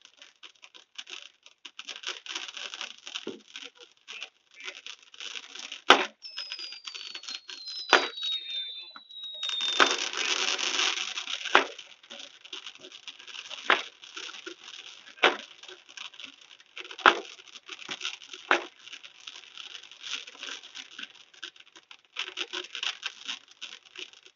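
Fireworks going off: continuous crackling with sharp bangs every second or two. Two falling whistles come about six to nine seconds in, then a loud hissing rush around ten seconds.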